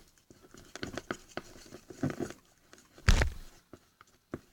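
Glue and shaving-foam slime being stirred in a bowl with a mixing tool: scattered soft squelches and clicks, with one loud knock about three seconds in.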